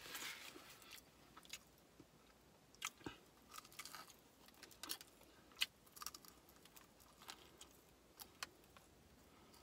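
Faint chewing and biting into a fried chicken wing: irregular soft crunches and mouth clicks.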